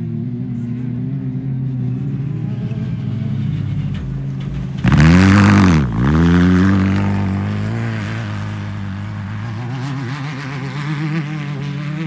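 Off-road race car engines running, then one car goes by close about five seconds in: loud for about a second, its engine note dropping sharply and rising again as it passes.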